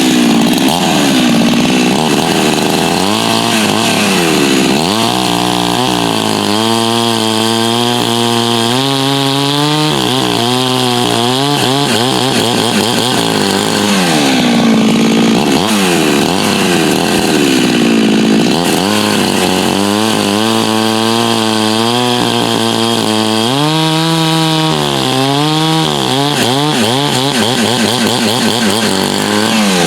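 86cc hybrid Husqvarna 372XP two-stroke chainsaw running, revved up and down over and over, with two longer spells held at a steady speed. It runs strong, the air leak at its impulse nipple cured with a newly made steel nipple.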